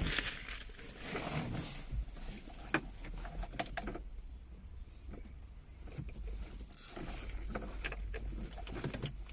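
Plastic cable ties being fastened around a bundle of car wiring: scattered clicks and rustling as the wires are handled and the ties pulled tight.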